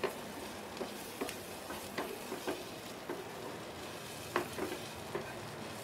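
Chopped onions frying in olive oil over a low flame, with a steady, gentle sizzle. A wooden spatula stirs and scrapes them in the pan in short, irregular strokes.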